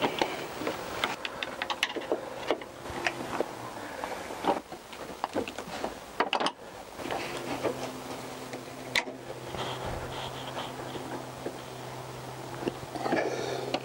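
A screwdriver and knife prying and scraping at a plastic coolant header tank to free its retaining tabs, making scattered clicks, knocks and rubbing of plastic. A low steady hum comes in about seven seconds in.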